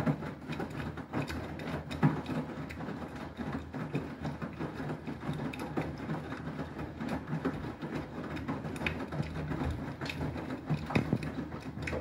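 Beko WTK104121W front-loading washing machine in its wash, the drum turning with wet laundry and water tumbling inside. It makes a steady mechanical churn with irregular clicks and knocks, the sharpest about two seconds in.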